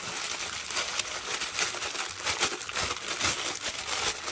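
Plastic packaging crinkling and rustling as small packaged toys are handled, a dense run of crackles.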